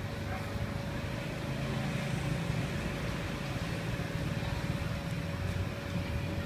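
Steady low mechanical rumble with a constant faint hum over it, like engine noise in the background.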